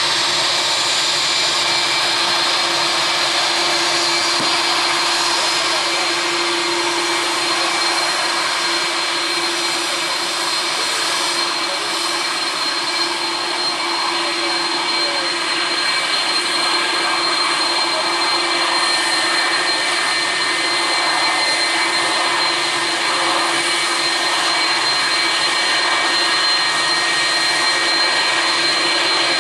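Jet engines of a departing Boeing airliner running at high power: a loud, steady rush of noise with a high, steady whine over it.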